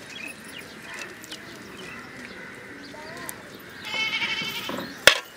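A farm animal bleats once with a wavering call about four seconds in. Just after it, a metal slotted spoon knocks sharply against the aluminium cooking pan, the loudest sound here.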